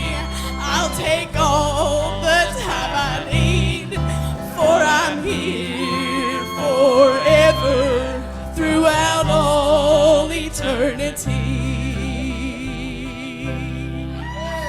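Live gospel music: a melody with a wide, wavering vibrato over sustained bass notes, with no words.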